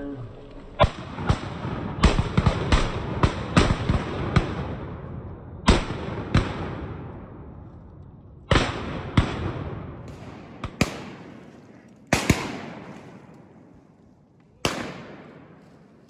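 Several shotguns firing on a passing flock of ducks: a rapid volley of about ten shots, then scattered pairs of shots a few seconds apart, each shot trailing off in a long echo through the timber.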